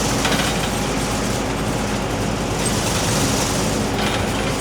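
Case TR320 compact track loader's diesel engine running loud under way, with a steady rattling clatter as the loader drives on its tracks.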